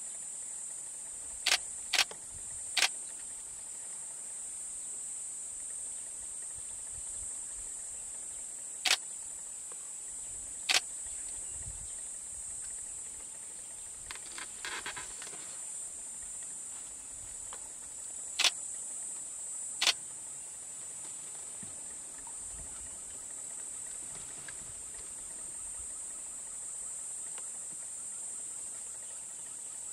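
Steady high-pitched buzz of an insect chorus in the bushveld, broken by about seven sharp, short clicks at irregular times.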